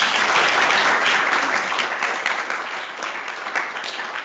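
Audience applauding, loud at first and slowly tailing off.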